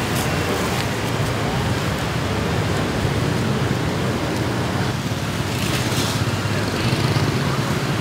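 Steady road traffic noise, a continuous vehicle rumble.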